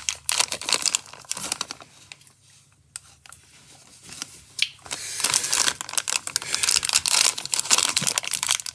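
Plastic packaging crinkling and being torn open by hand, with small clicks; it goes quiet for a moment, then about five seconds in the crinkling turns steady and busier.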